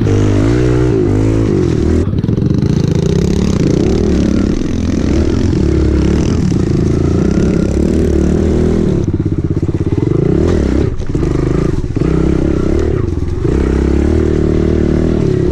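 Kawasaki KLX110 pit bikes' small single-cylinder four-stroke engines running as they are ridden, the engine pitch rising and falling with the throttle.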